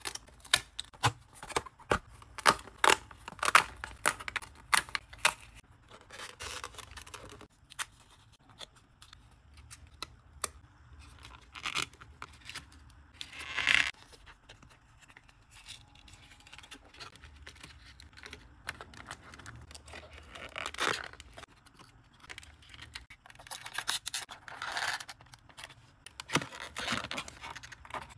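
Thin printed cardboard pieces of a 3D paper dollhouse handled by hand: a quick run of crisp snaps and tearing as parts are pressed out of their punch-out sheet, then scattered scrapes and crackles as the card is folded and its tabs slotted together.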